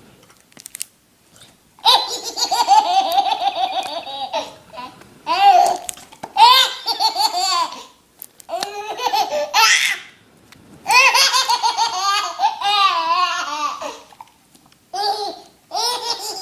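Baby laughing hard: about five fits of belly laughter, each a run of quick high rising-and-falling squeals, with short breaths between them.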